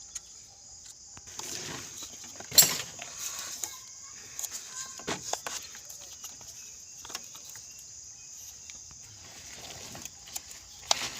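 Scattered clicks and knocks of parts and tools being handled, the sharpest about two and a half seconds in, over a steady high-pitched background hiss.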